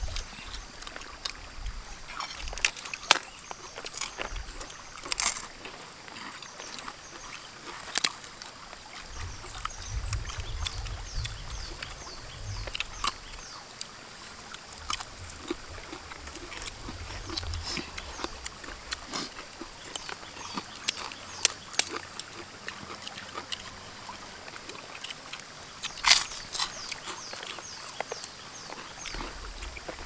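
Eating sounds of people eating with their hands: scattered crunches, clicks and small taps from chewing fried quail and picking food off banana leaves and plates, the loudest snaps a few seconds in and again near the end. A faint high-pitched chirping runs underneath.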